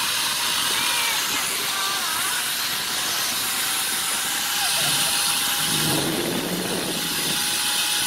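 Steady rushing roar of a high waterfall far below, an even hiss that holds without a break.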